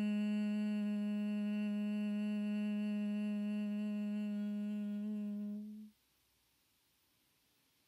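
A woman humming one steady low note on a long exhale, as in bhramari (humming-bee) breath. The hum stops abruptly about six seconds in, and near silence follows.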